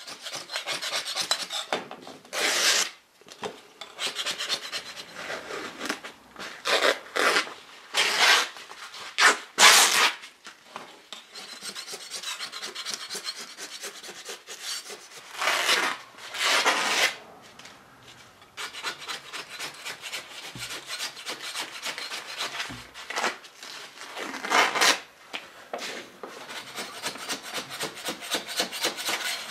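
A hand scraper scraping the old, failed fabric backing and glue off the wooden slats of tambour doors. It goes in runs of short, rapid strokes, with louder, longer strokes now and then.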